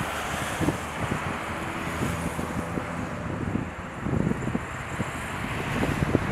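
Boeing 747-400F freighter's four jet engines running on the runway, a steady rushing noise that grows louder near the end, with wind buffeting the microphone.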